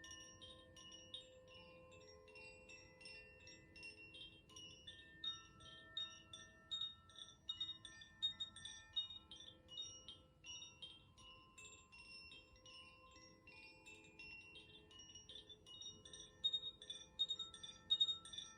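Koshi Aria chime, a bamboo-tube wind chime with tuned metal rods, being swung so that its clapper strikes the rods in quick clusters of bright tinkling notes over long ringing tones. A few louder strikes come near the end.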